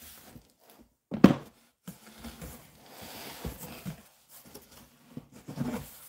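Handling sounds of unpacking books from a cardboard box: plastic bubble wrap and cardboard rustling and crinkling, with a single sharp thump about a second in, as a hardback book is set down.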